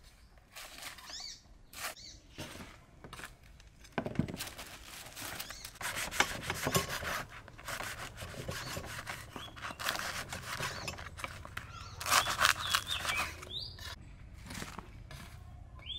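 Kitchen knife sawing through crusty baguette-style bread rolls on a wooden chopping block: the crust crackles in repeated bursts of short strokes, with a thump about four seconds in.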